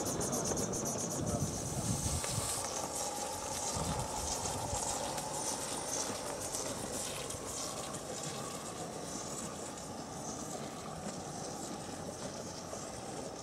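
Gauge 1 live-steam model train running on garden track. A fast, even beat of ticks fades over the first couple of seconds as the train moves off, then a quieter steady running sound is heard from further away.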